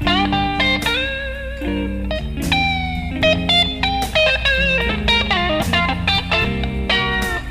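Background music: a bluesy guitar lead with bent and sliding notes over a low bass line.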